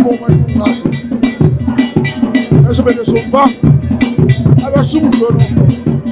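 Traditional percussion music: drums beating about twice a second under a fast, steady pattern struck on a metal bell.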